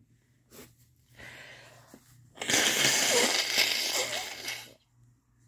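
A woman blowing her nose hard into a paper tissue after crying, one long noisy blow of about two seconds.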